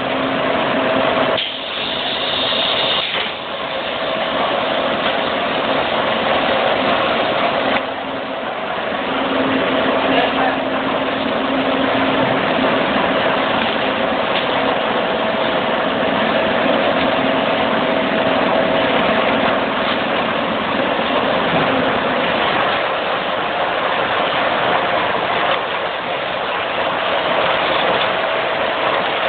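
Rice packing machine for 5 kg bags running steadily: a continuous mechanical rush with a steady motor hum.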